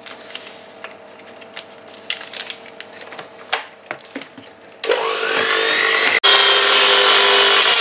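A paper sachet rustling and tearing with small clicks. About five seconds in, a Gorenje electric hand mixer starts up with a rising whine, cuts out for an instant about a second later, then runs on steadily as it beats the egg-and-sugar mixture.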